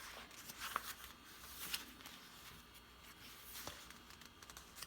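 Paper pages of a collaged journal being turned and handled, faint rustling with a few light ticks.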